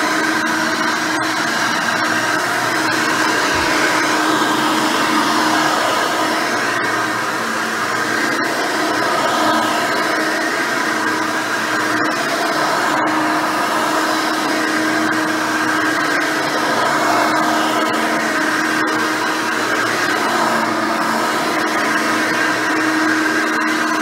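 Hoover Elite 600 upright vacuum cleaner, a 6-amp motor with a nine-blade fan and a dual-row bristle brush roll, running steadily while being pushed over carpet. It makes a constant whine and hum with no change in speed.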